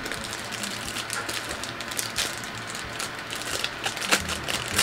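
A plastic phone case and its wrapping being handled: a patter of small crackles and clicks, with a few sharper clicks.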